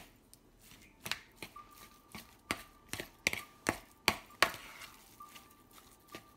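A metal spoon stirring ground chicken in a bowl, knocking and scraping against the bowl's side in a run of irregular sharp clicks, busiest around the middle.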